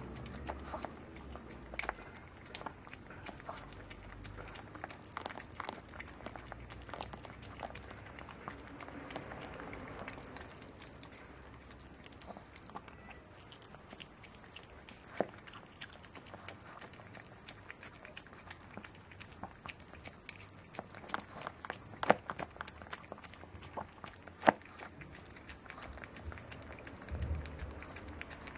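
A long-haired chihuahua licking and eating soft dog cake from a glass dish: a continuous run of short licking and mouth clicks, with a couple of louder clicks after about twenty seconds.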